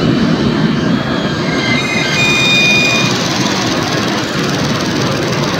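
Airplane kiddie ride's recorded engine sound effect, a steady loud drone, with a few short electronic beeps about two seconds in.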